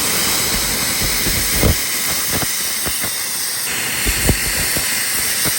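Oxy-fuel cutting torch hissing steadily as it cuts steel plate, with a few short low thumps scattered through it.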